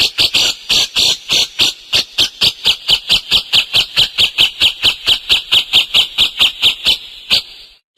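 Cage songbirds singing hard in a fast, even series of sharp repeated high notes, about five a second, breaking off shortly before the end.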